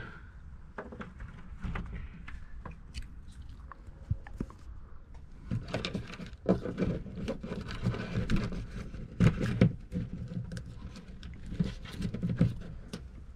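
Handling noises of a 12 V rocker-switch panel and its wiring being worked into a cut-out in a van's wall board: scattered clicks, knocks and rustling scrapes, with the loudest knocks about six and a half and nine and a half seconds in.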